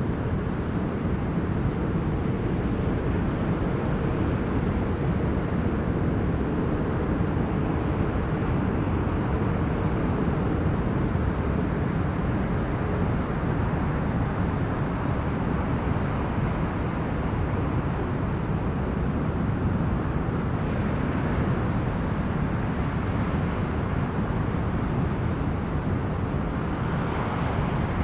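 Strong storm wind buffeting the microphone in a steady low rumble, over the hiss of sea waves washing onto the beach, which swells a couple of times in the second half.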